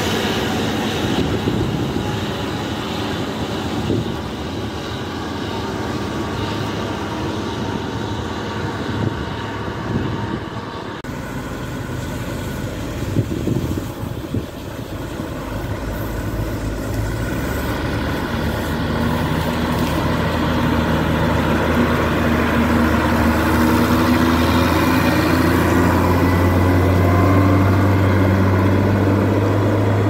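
New Holland CX6080 combine harvester, with a 6.7-litre six-cylinder diesel, running steadily while harvesting corn. The sound changes suddenly about a third of the way in to heavy diesel engine noise. In the last third a lorry's engine grows louder with a slowly rising pitch as it drives off.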